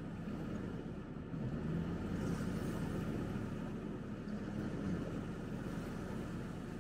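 Sherp amphibious ATV's diesel engine idling steadily, a low hum.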